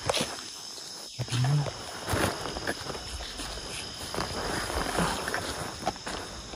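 Night forest ambience: insects, crickets among them, trilling steadily at a high pitch, with scattered short knocks of footsteps on the ground. A brief low hum of a man's voice comes about a second in.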